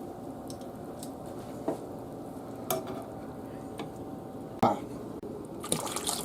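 Braising pot roast sizzling in its pan, with a few sharp clicks and knocks of a utensil against the pan as the meat is turned; the loudest knock comes about four and a half seconds in.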